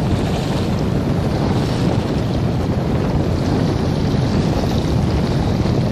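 Wind buffeting the microphone: a steady low rumble that does not let up, over wind-driven choppy water.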